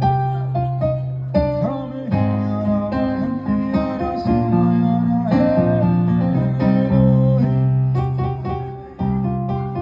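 Music: a plucked guitar and keyboard with a steady bass line, notes changing every second or so, with a dip in level just before the end.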